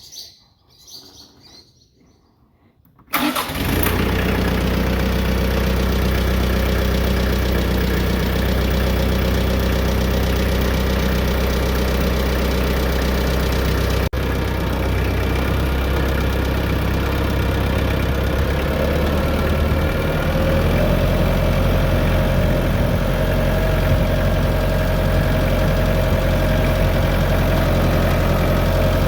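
McCormick compact tractor's engine comes in suddenly about three seconds in and then runs steadily at idle, its note shifting slightly about two-thirds of the way through.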